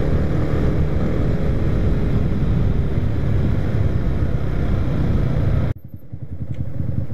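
Motorcycle riding along with heavy wind and engine noise on the helmet-mounted microphone; nearly six seconds in the rushing noise cuts off suddenly as the bike slows and stops, leaving the engine idling with an even low pulse.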